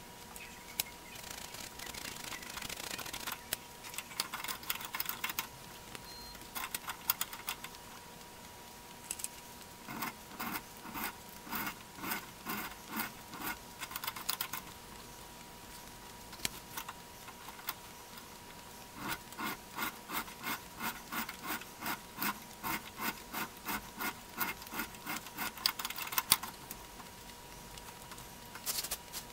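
Steel threaded screw of an antique C-clamp being turned by its wing handle in the clamp frame: the hand-filed square threads scrape metal on metal in short strokes, about two a second, in two runs with a pause between.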